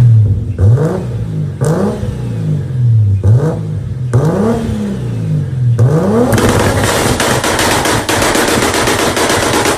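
A tuned, turbocharged Toyota Supra engine revved in several quick blips, each rising and falling in pitch. About six seconds in it breaks into a fast, unbroken rattle of exhaust pops and bangs from its anti-lag system.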